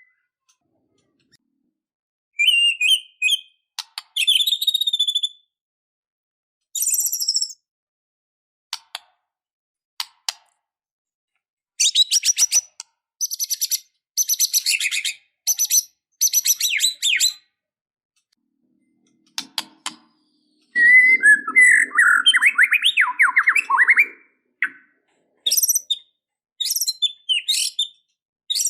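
White-rumped shama singing in separate phrases of high whistles, trills and fast repeated notes, with complete silence between phrases. A lower, harsher rattling phrase comes about two-thirds of the way through.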